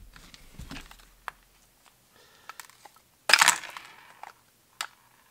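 Plastic housing of a Ryobi P201 cordless drill being taken apart by hand: scattered small clicks and rattles, then a loud crackling scrape a bit over three seconds in as the motor and gearbox are pulled free of the clamshell.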